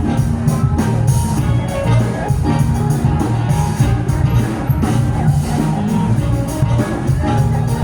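A live band playing rock music, with a strong bass line and a steady drum beat.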